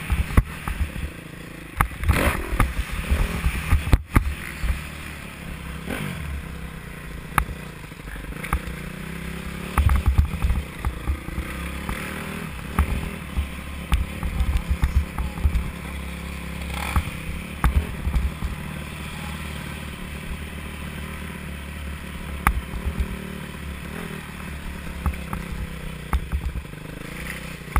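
Dirt bike engine running as the bike is ridden, heard from a helmet-mounted camera, with frequent short knocks and clatter.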